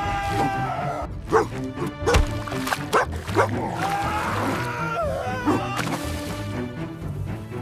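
Cartoon background music with a string of short, sharp sound-effect hits, and a dog barking.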